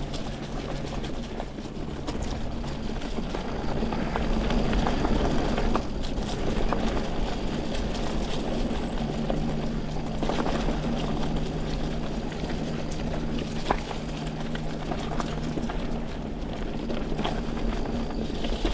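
Mountain bike ridden along a leaf-covered dirt trail: tyres rolling over the ground, with scattered clicks and knocks from the bike and a steady low hum underneath.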